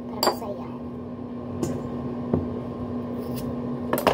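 Kitchen knife cutting broccoli stalks and florets being snapped apart: about five short, sharp clicks and snaps spread through, over a steady electrical hum.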